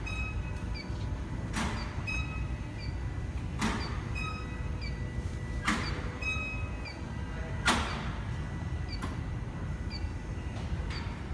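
Electronic refrigerant leak detector sniffing a welded AC condenser repair, giving a regular series of short electronic beeps with a louder swish about every two seconds, over a low steady rumble. The detector does not pick up a leak at the weld.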